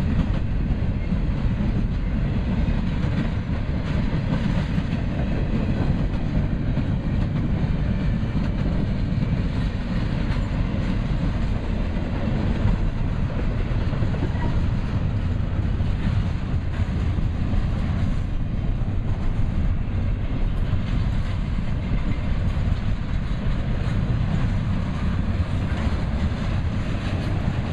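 Double-stack container freight train rolling past, a steady heavy rumble of steel wheels on the rails.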